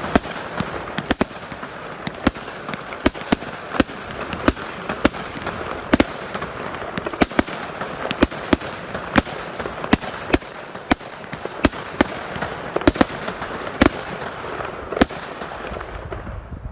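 A 100-shot firework cake firing: sharp bangs about two a second over continuous crackling. The last bang comes about a second before the end and the crackle fades away.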